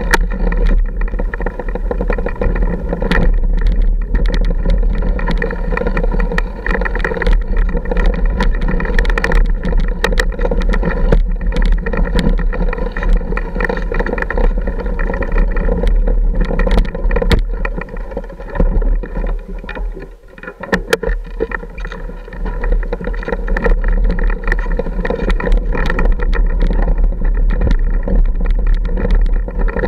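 Dirt bike engine running at low speed over a rough, rocky trail, with frequent sharp knocks and clatter as the wheels and suspension hit rocks. The engine sound drops off briefly about two-thirds of the way through, then picks up again.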